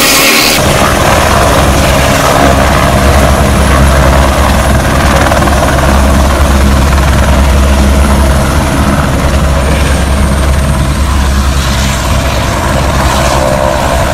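A light single-engine helicopter's rotor and engine running loud and steady as it touches down on the helipad and keeps running on the pad.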